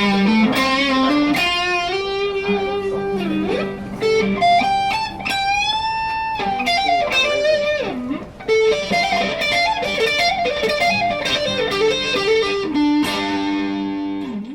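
PRS 408 electric guitar being played: melodic single-note lines over held lower notes, with a note bent up and held about five to six seconds in. The playing stops abruptly at the end.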